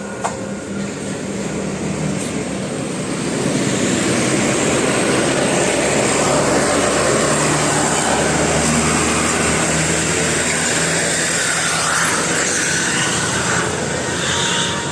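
A large bus driving past close by: engine and tyre noise building over the first few seconds, then holding loud and steady.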